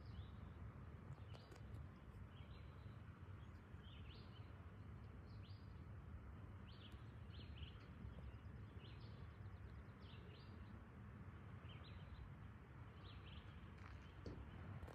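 Faint ambience: small birds chirping in short calls, roughly one every second, over a steady low rumble.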